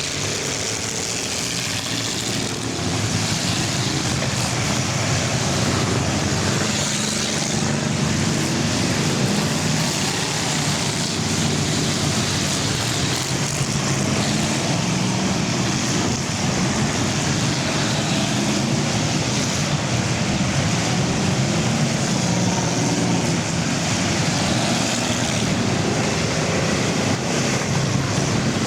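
A field of full-size cars racing in an enduro, many engines running and revving together in a steady din.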